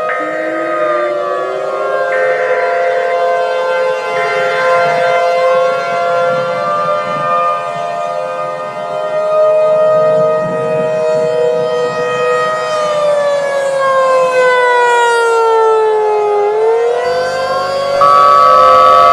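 Several civil-defense sirens wailing at once, their pitches slowly rising and falling across one another over steady held tones. About a second before the end, a louder steady tone cuts in.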